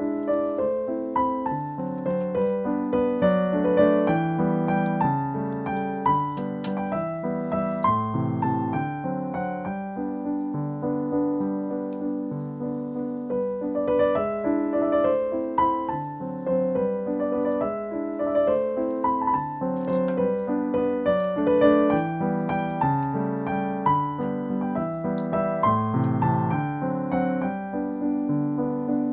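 Background piano music: a steady melody with chords.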